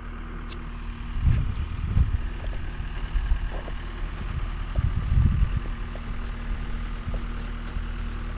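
An engine running steadily at idle, with several low gusts of wind buffeting the microphone.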